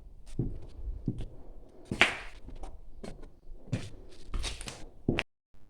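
Footsteps on a hard floor in a bare room, a step roughly every 0.7 s, with a brighter scrape about two seconds in; the sound drops out briefly near the end.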